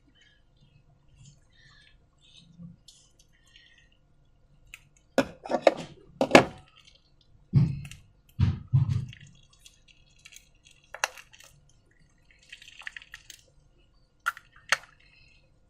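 Wet, sticky squelches and clicks of slime being handled, coming in scattered bursts. The loudest cluster falls around five to nine seconds in, and a few sharper clicks follow later.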